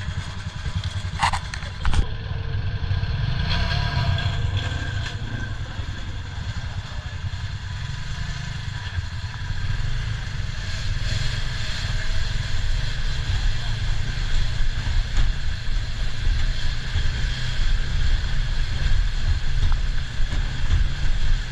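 Off-road buggy running, a steady low engine rumble throughout, with a couple of sharp knocks about a second or two in.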